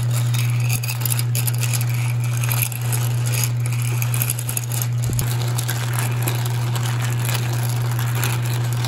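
Cockle shells clattering and scraping against each other and the pot as they are stirred in water, a dense run of small clicks. A steady low hum runs underneath.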